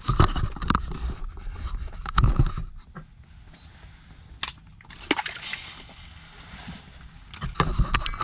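Water sloshing and splashing in an ice-fishing hole as a bluegill is let go, mixed with knocks and rustles of handling. The loudest bursts come at the start, about two seconds in, and again near the end, with a few sharp clicks in between.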